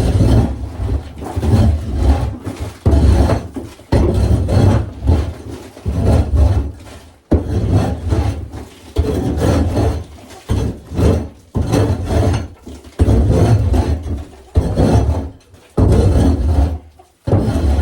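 A shovel scraping and scooping old bedding and chicken droppings out of a coop: repeated rough scraping strokes, about one a second.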